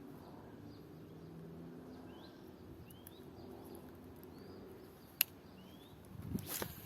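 A bird calling with short rising chirps, repeated many times over faint natural background noise. A single sharp click comes about five seconds in, and a brief louder rustling burst near the end.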